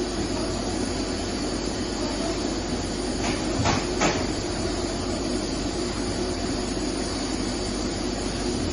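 L-sealer shrink wrap machine running: a steady blower and motor noise, with two or three sharp clacks a little under four seconds in.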